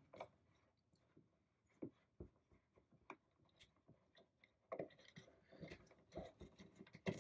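Mostly near silence with a few faint ticks. From about halfway comes a run of small clicks and scrapes as a small retaining bolt is worked out of the jet unit's strap mount by hand, with a sharper click near the end.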